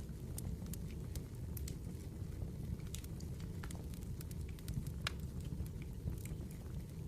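Firewood burning, crackling with irregular sharp pops and snaps over a steady low rumble.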